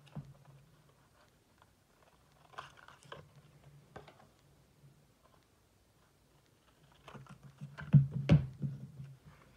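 Scissors snipping through a strip of patterned designer paper, a few short quiet snips, then louder knocks and paper handling near the end as the scissors and offcut are put down on the craft mat.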